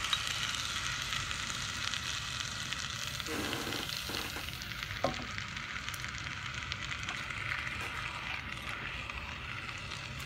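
Liquid nitrogen boiling off around a chilled superconductor puck: a steady sizzling hiss that thins out after about six seconds, with one small click about five seconds in.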